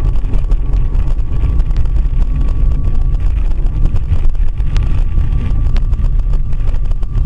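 A car's running rumble heard from inside the cabin through a dashcam microphone, dense and low, with frequent small knocks and rattles as it drives over a rough, potholed road.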